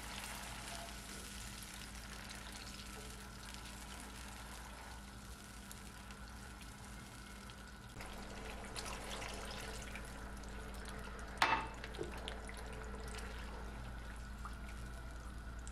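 Tomato sauce simmering and sizzling in a nonstick frying pan while a silicone spatula stirs it. A glass of water is poured in about halfway through, and the sound gets a little louder. A single sharp knock comes a few seconds later.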